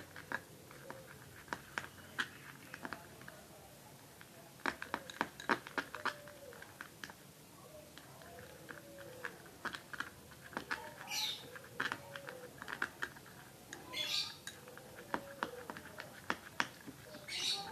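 Irregular light clicks and taps, with three short hissing noises about a third, two thirds and near the end of the way through.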